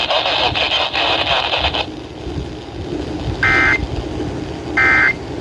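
Noisy radio broadcast audio that drops to a low hiss, then two short screechy data bursts about a second and a half apart. These are Emergency Alert System end-of-message codes, marking the close of a severe thunderstorm warning.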